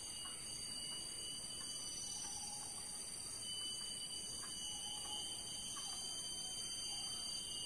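Forest insects droning steadily, several high, unbroken pitches held at once.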